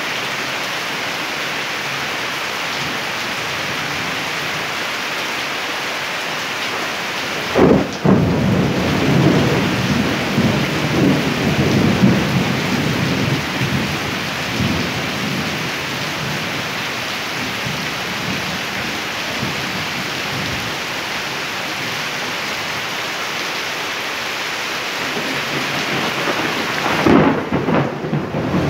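Steady heavy rain hissing, with thunder breaking in suddenly about eight seconds in and rolling low for several seconds before fading, and a second thunder rumble starting near the end.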